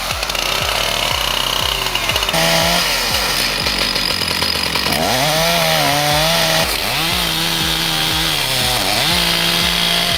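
Chainsaw running near full throttle, its pitch swooping up and dipping as the throttle is worked, with a deeper dip near the end.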